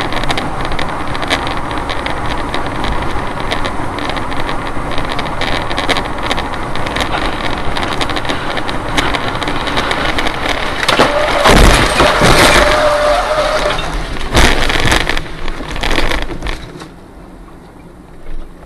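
Car dashboard camera's sound while driving at speed: steady road and wind noise, then from about eleven seconds a run of loud bangs and crashes with a brief steady whine, as a passenger jet crash-lands and breaks up on the highway ahead. The noise drops sharply near the end.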